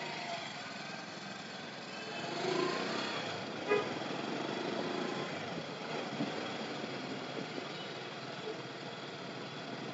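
Steady motorcycle engine and road noise while riding through city traffic, with a short pitched tone like a horn toot a little under four seconds in.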